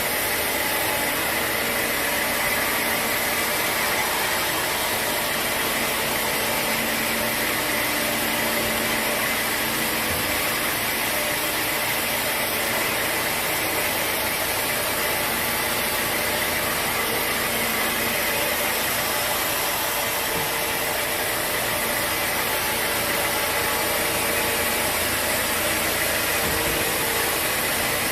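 Sawmill machinery running steadily, a continuous loud mechanical noise with a faint steady high whine in it.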